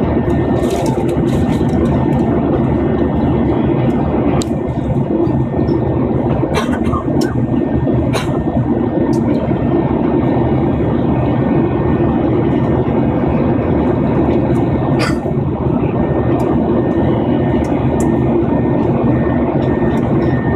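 Steady roar of an airliner's jet engines and airflow heard inside the passenger cabin, with a few faint clicks.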